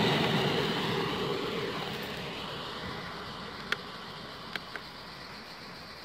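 A train that has just passed is moving away, its rumble fading steadily. Three short sharp clicks come a little over halfway through, two of them close together.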